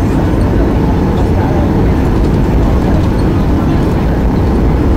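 Cabin noise of a Boeing 737-800 taxiing, its CFM56-7B engines at idle thrust: a steady low rumble.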